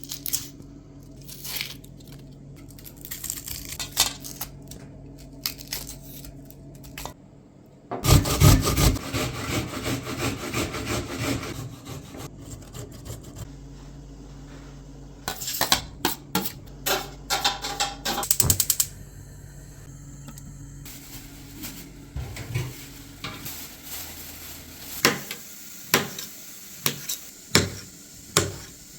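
Kitchen work: dishes, pots and utensils clinking, knocking and scraping at irregular moments over a steady low hum. A louder stretch of scraping noise comes about eight seconds in and lasts about three seconds, and a quick run of sharp clicks follows a few seconds later.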